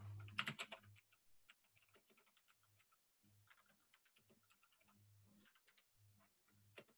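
Faint computer keyboard typing: quick runs of soft key clicks, with one louder click near the end.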